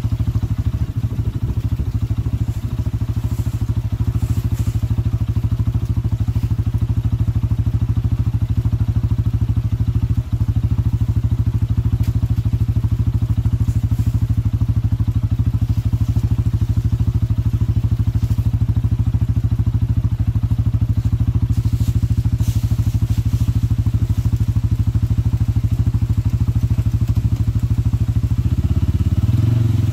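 CFMoto CForce 500 ATV's single-cylinder engine idling steadily close by, with faint clinks and knocks as a tow strap is wrapped around a log. Near the end the engine note rises as the ATV starts to pull.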